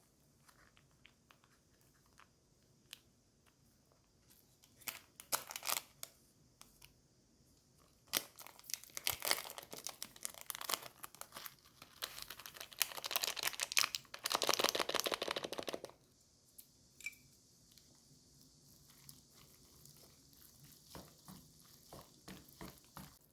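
Food packaging being handled: a few light clicks and rustles, then about eight seconds of loud tearing and crinkling as the wrapper is torn open and crumpled, fading to faint rustling.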